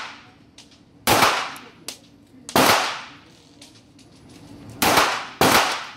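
Four pistol shots fired one at a time at an uneven pace, the last two about half a second apart, each leaving a short echoing ring-out in the indoor range.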